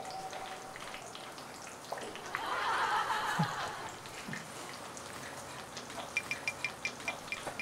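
Breaded food deep-frying in hot oil in a wok: a steady crackling sizzle. Near the end, a run of quick, evenly spaced high ticks, about five a second.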